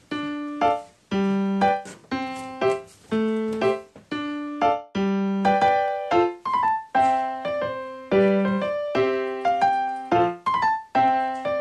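Background music: a keyboard tune with a piano-like sound, made of short pitched notes in a steady rhythm.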